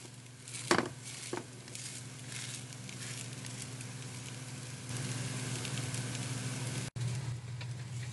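A potato pancake frying in oil in a nonstick pan, sizzling steadily, with a couple of sharp taps of a wooden spatula against the pan about a second in. A steady low hum runs underneath.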